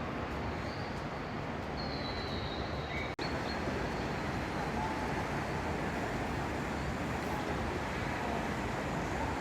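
Steady rushing background noise of a huge indoor hall housing a tropical rainforest, with a few faint high chirps, likely birds, in the first few seconds. The sound drops out for an instant about three seconds in.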